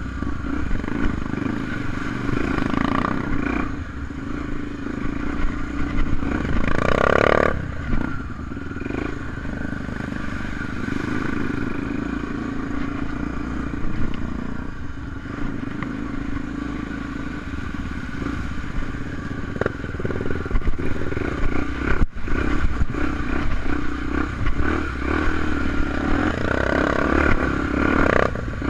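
Honda Tornado enduro motorcycle's 250 cc single-cylinder engine running as it is ridden on dirt, with rattling and scraping from the bike. The revs rise briefly about a quarter of the way in and again near the end.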